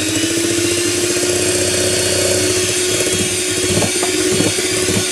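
Electric hand mixer running steadily on a low speed, its beaters whisking stiff egg whites as egg yolks are beaten in. A few light clicks come in the second half.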